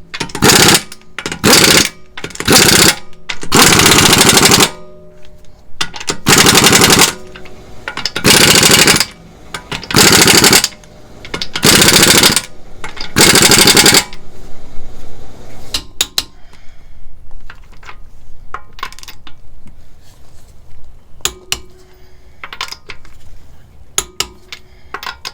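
Impact wrench hammering in about ten short bursts, running in and tightening the wheel's lug bolts. It then goes quiet, leaving light metallic clicks and clinks of tools and bolts for the last ten seconds or so.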